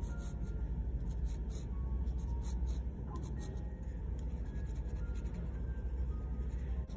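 Lamy fountain pen nib scratching over textured watercolour paper in short drawing strokes, over a steady low rumble.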